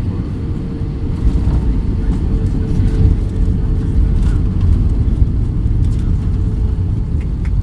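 Airbus A320 landing, heard from inside the cabin: a heavy low rumble of the wheels on the runway mixed with engine noise, getting louder about a second in. A thin steady hum runs through it and fades out near the end.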